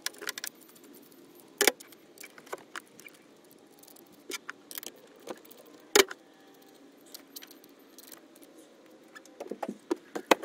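Small metal clicks and clinks as a hand wrench loosens the cable nuts on a Group 31 AGM battery's terminals. Two sharper knocks come about one and a half and six seconds in, and a quick run of clicks near the end.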